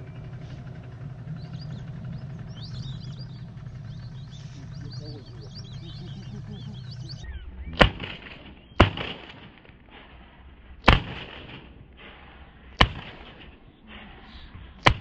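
A flock of whistling ducks calling with many high, thin whistles over a steady low hum. After an abrupt change about halfway through, five loud shotgun shots follow at uneven gaps over about seven seconds, the last near the end.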